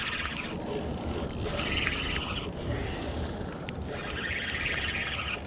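Fishing reel whirring in three short bursts of about a second each while a hooked Chinook salmon is fought, over a steady low rumble.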